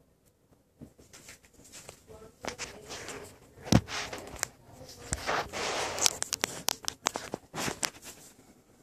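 Handling noise from a phone being moved about while filming: scattered rustles and clicks, one sharp knock a little under four seconds in, then a couple of seconds of scraping and rubbing with quick clicks.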